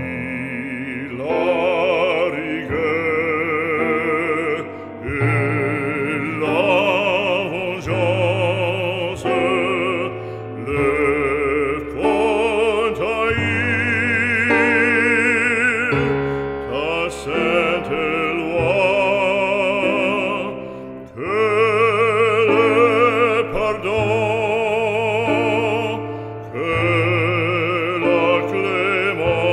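Background music: a classical solo voice singing in operatic style with wide vibrato over sustained low accompaniment.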